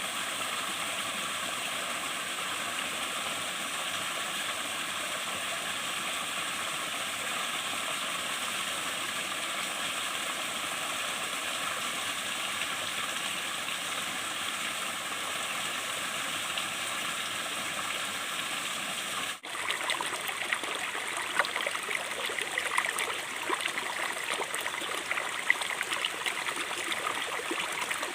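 Stream water flowing steadily. About two-thirds of the way in the sound cuts abruptly to a rougher, splashier stretch of water with many small sharp spikes.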